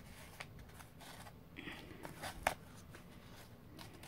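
Faint handling noises of a rolled paper scroll tied with twine being picked up and turned over: light paper rustling and small clicks, the sharpest about two and a half seconds in.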